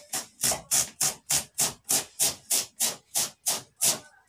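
Drywall rasp scraping quickly back and forth across polyurethane seat foam, about three short strokes a second. The rasp is shaving the foam down flush with the car seat backrest.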